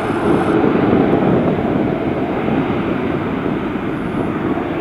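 Boeing 737-800's CFM56 jet engines at takeoff thrust during the takeoff roll: a steady, heavy rush of jet noise that slowly fades as the aircraft accelerates away.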